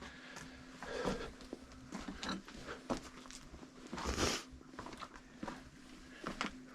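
Footsteps and scuffs of a person moving over the rocky floor of a lava tube, with clothing rustling, in irregular short scrapes and knocks; the loudest, longest scrape comes about four seconds in. A faint steady hum runs underneath.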